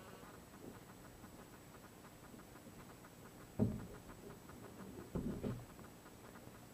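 Handling noise: a sudden knock a little past halfway, then a short cluster of muffled knocks and rubbing about a second and a half later, over faint hiss.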